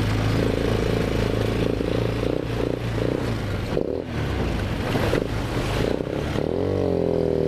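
ATV (four-wheeler) engine running steadily while riding a rough trail, with knocks and clatter from the bumps in the middle. Near the end the engine rises in pitch as it is throttled up, then holds.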